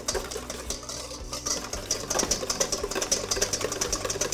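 Wire balloon whisk beating egg yolks with warm milk and olive oil in a stainless steel bowl: quick, even strokes, several a second, the wires clicking and scraping against the metal as the mixture is emulsified.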